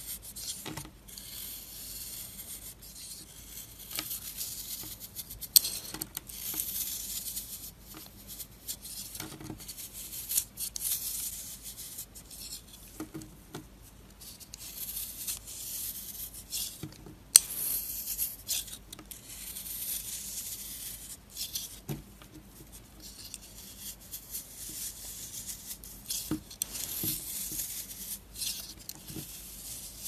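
A snap-off utility knife blade cutting and scraping into a block of dry soap: repeated crunchy shaving strokes as flakes and chunks crack and break away, with two sharp cracks standing out.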